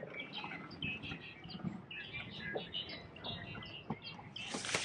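Many small birds chirping and twittering in quick short notes, with a short burst of rustling noise near the end.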